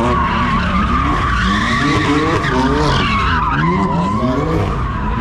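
A car spinning its tires with a continuous squeal, while its engine revs rise and fall again and again about once a second.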